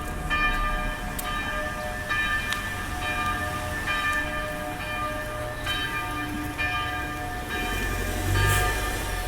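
Church bells pealing: several bells struck again and again at uneven spacing, about once a second, their tones overlapping and ringing on between strikes.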